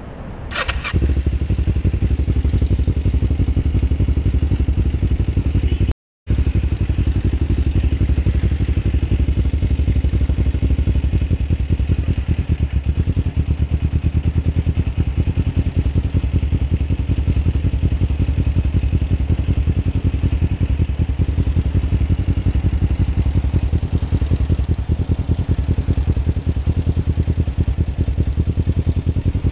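Kawasaki Ninja 500R parallel-twin engine, fitted with a Delkevic Mini 8 slip-on muffler, picking up about a second in and then running steadily at low speed as the bike is ridden slowly, heard from the rider's helmet camera. The sound cuts out completely for a moment about six seconds in.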